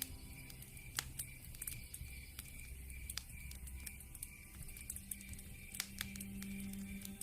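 Wood fire in a fireplace crackling, with irregular sharp pops and snaps over a low hiss. One louder pop comes about a second in, and a few more near the end.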